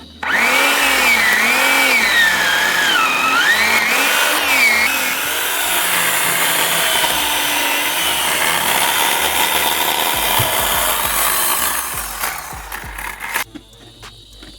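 Chainsaw cutting through wood, its engine pitch rising and falling under load during the first few seconds, then a steady cut that tails off and stops about 13 seconds in.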